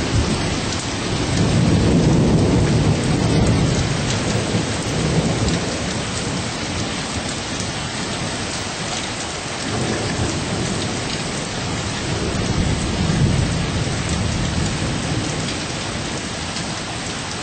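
Steady heavy rain falling, with rolling thunder rumbling low underneath and swelling a few times.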